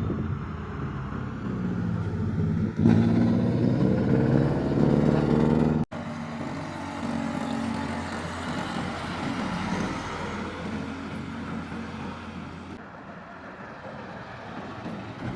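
A heavy vehicle's engine running loud as it passes close by; the engine note breaks off suddenly about six seconds in, leaving road and tyre noise that slowly fades away.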